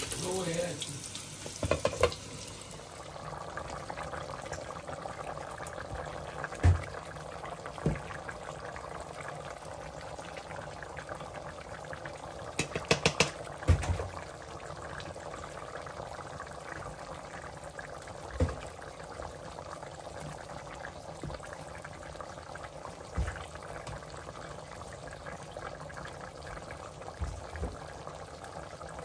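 Food sizzling steadily in a hot pan, with a few scattered knocks and clinks of a utensil against the cookware.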